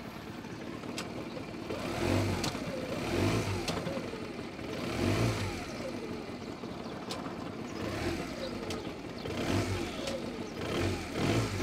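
Honda CD125T's twin-cylinder four-stroke engine running, its throttle blipped about six times so the revs rise and fall back each time.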